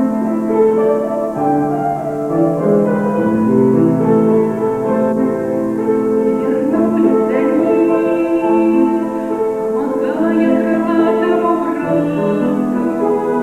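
A slow song: a woman singing with vibrato over piano accompaniment.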